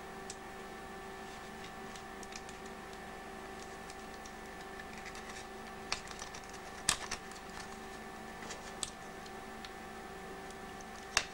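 Small clicks and taps of fingers handling a portable cassette player's plastic mechanism and circuit board. Sharper clicks come about seven and eleven seconds in, over a steady faint hum.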